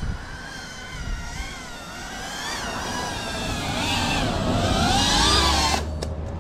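FPV quadcopter's brushless motors and propellers whining in flight. The pitch wavers up and down with the throttle and grows louder and higher, then cuts off suddenly near the end.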